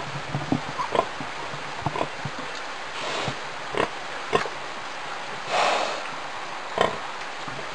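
A sow and her newborn piglets nursing: short grunts and squeaks come in quick clusters, thickest in the first two seconds. A longer breathy snort comes a little past halfway.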